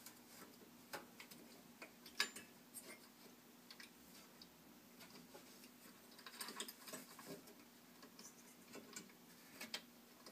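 Faint, irregular plastic and metal clicks and taps from a CPU fan/heatsink being seated and its retention clip worked onto the motherboard socket bracket, the sharpest click about two seconds in and a small flurry around the middle.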